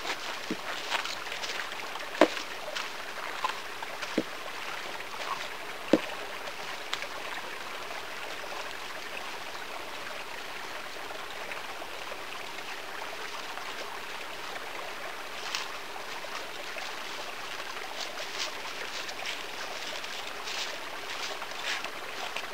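Footsteps in dry fallen leaves on a forest trail, fading as the walker moves away in the first seconds and returning near the end, over a steady outdoor hiss. A few sharp clicks stand out, the loudest about two and six seconds in.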